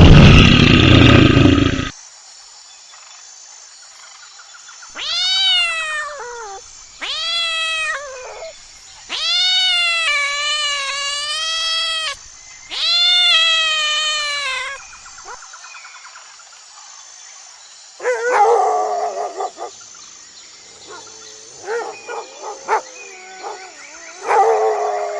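Animal calls: a loud, rough roar in the first two seconds, then four long drawn-out pitched calls, each rising and then falling, and near the end a run of shorter, rougher calls.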